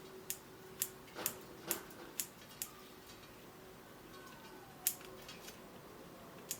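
Garden scissors snipping smoke tree stems: sharp clicks about twice a second for the first few seconds, then two more, well apart, later on.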